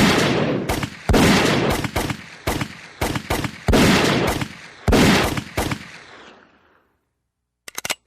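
A string of about ten gunshots, unevenly spaced, each with a long echoing tail, the last tail dying away about seven seconds in. A few short clicks follow just before the end.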